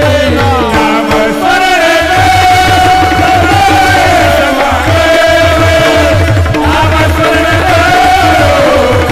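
Kirtan chorus of men singing a devotional melody together, with the steady clashing of small brass hand cymbals (tal) and a barrel drum (mridang) keeping the rhythm. The drum stops for about a second near the start, then resumes.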